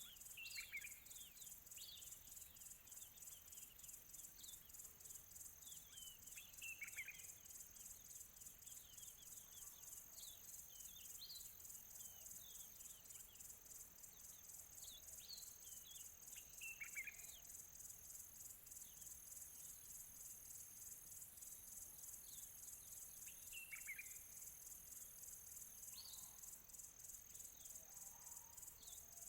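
Faint birdsong of scattered short chirps, a few of them louder calls that drop quickly in pitch. These sit over a continuous high, evenly pulsing insect trill.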